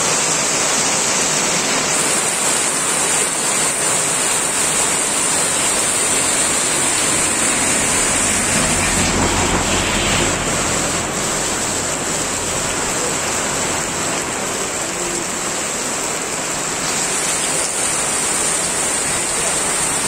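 Heavy rain falling steadily, a dense hiss of downpour on the road and surroundings. A bus drives past about halfway through, adding a low engine rumble that swells and fades.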